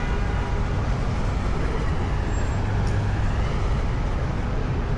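Busy city street traffic: a steady wash of passing vehicles with a low engine rumble from a heavy vehicle, strongest about halfway through.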